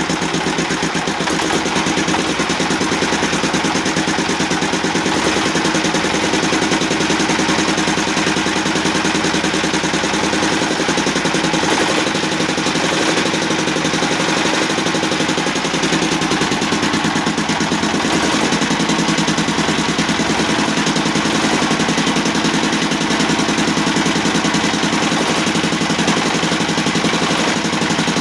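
S1125 single-cylinder diesel boat engine running steadily. The engine has just been repaired after it quit and could not be throttled.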